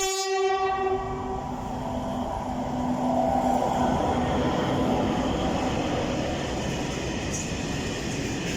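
A diesel locomotive horn sounds one short blast at the start, then a pair of SNCF BB 67200 diesel locomotives working in multiple pass close by with a steady rumble and engine drone.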